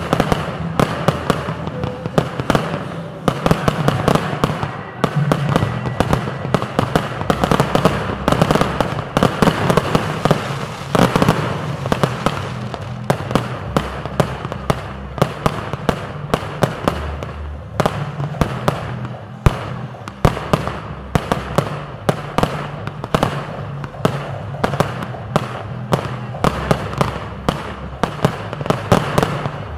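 Consumer aerial fireworks going off in a rapid barrage, with many sharp bangs a second from bursting shells over continuous crackling.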